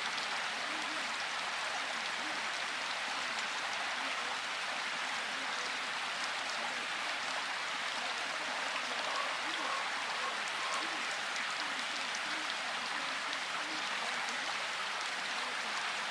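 Steady rain falling, an even unbroken hiss. Beneath it a faint, barely audible voice murmurs: the quietly mixed affirmation layer of a subliminal track.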